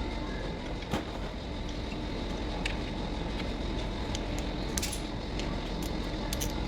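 Scattered light metallic clicks and clinks of hand tools and bolts being handled while an alternator is refitted, over a steady background rumble. One click comes about a second in and a small cluster comes near the end.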